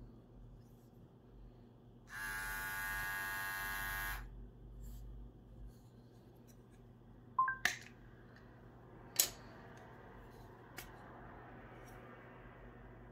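KEMEI T-blade hair trimmer switched on and running with a steady buzz for about two seconds, then switched off. A few seconds later come several sharp plastic and metal clicks as the comb guard and the blade head are taken off the trimmer.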